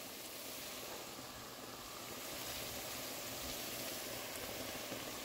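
Faint, steady sizzle of diced vegetables sautéing in oil in a Dutch oven.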